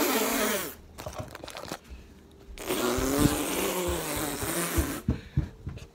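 A person's harsh, breathy noises of disgust just after a mouthful of ketchup, in two stretches, the second about two and a half seconds long, with knocks and clicks of the phone being handled between them.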